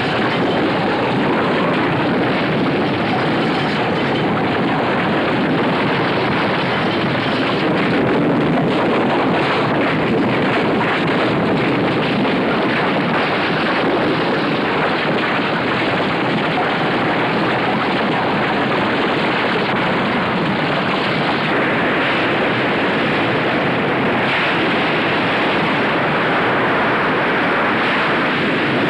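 Film soundtrack of a hurricane: a loud, steady rush of storm wind mixed with crashing surf.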